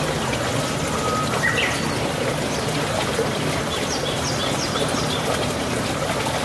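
Steady rushing noise with a few short bird chirps over it: one rising chirp about a second and a half in, and a quick run of high chirps around four to five seconds in.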